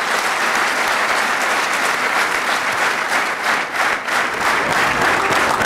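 Audience applauding: many hands clapping in a dense, steady wash that holds at an even level.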